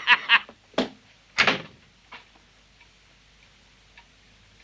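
Pub chatter breaks off, two sharp knocks follow, the louder about a second and a half in, and then the room goes quiet with only a few faint small ticks.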